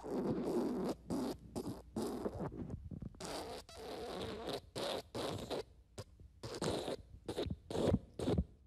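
Fart sound effect: a long string of short, raspy farts, about two a second, with a longer one at the start.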